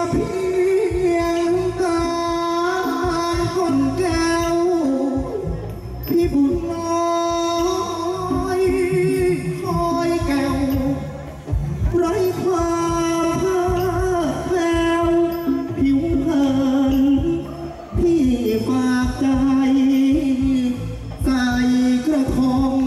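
Thai likay singing: a performer sings a slow, ornamented melody into a microphone, drawing out long wavering notes, over an instrumental accompaniment with a beat.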